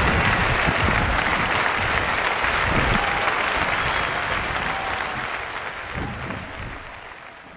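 Live concert audience applauding, fading out over the last two seconds or so.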